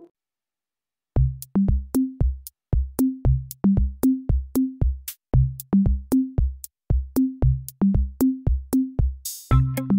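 Background music: after about a second of silence, an electronic beat starts with deep kick drums, short bass notes and sharp clicks in a steady rhythm. Just before the end a rushing sweep leads into fuller chords.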